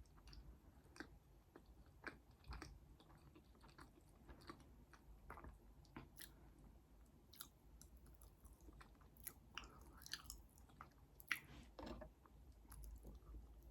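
Faint, close-miked eating sounds: a person chewing and biting food, with irregular short wet mouth clicks and smacks, one louder smack about eleven seconds in.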